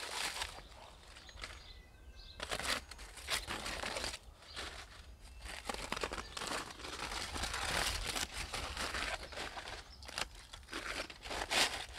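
Aluminium foil crinkling and crackling in irregular bursts as gloved hands work the foil wrapped around a grilled veal rack, with a brief lull about two seconds in.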